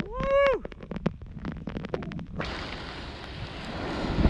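A brief pitched cry that rises and falls, then scattered sharp ticks of rain striking the microphone, until about two and a half seconds in a gust of wind hits the microphone with a steady rushing noise.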